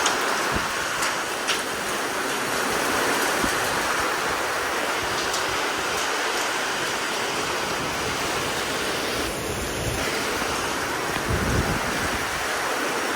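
Heavy rain and strong wind of a squall line: a steady, even rush of noise, with a few faint clicks.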